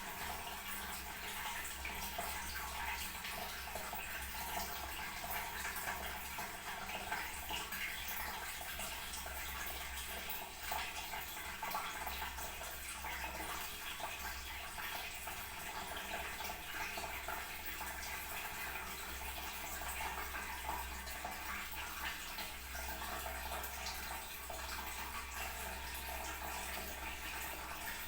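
Toilet tank refilling: a steady rush and hiss of water running in through the fill valve, unchanging throughout.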